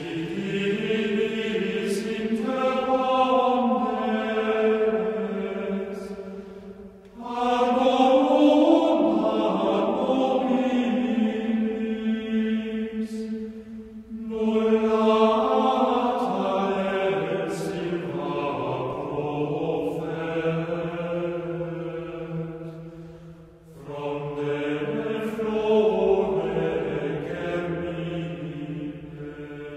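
Slow sung chant without accompaniment, in long sustained phrases separated by short pauses.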